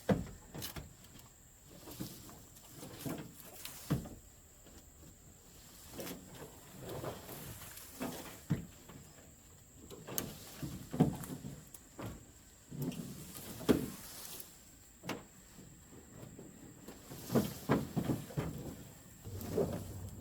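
Irregular knocks, thumps and rustling from things being handled, the loudest knock a little under three-quarters of the way through.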